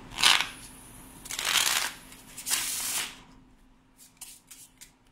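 A deck of plastic-coated playing cards being shuffled by hand: three brief riffling bursts in the first three seconds, then a few light clicks of the cards being handled near the end.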